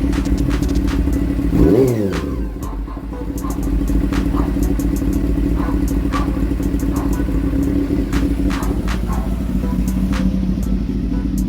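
Honda CB400 motorcycle engine idling steadily, with one quick throttle blip about two seconds in that rises and falls back to idle.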